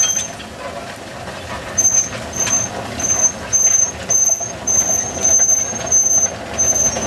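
Wheels of sugar-cane carts drawn by water buffalo squeaking as they roll: short high squeals about twice a second from about two seconds in, over a steady rumble.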